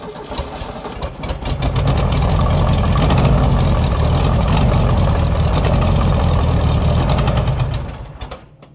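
Car engine running just after being started, growing louder about two seconds in as the car is driven off, then falling away near the end.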